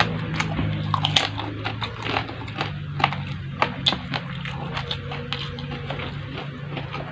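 Close-up eating: chewing with many irregular sharp crunches, over a low steady hum.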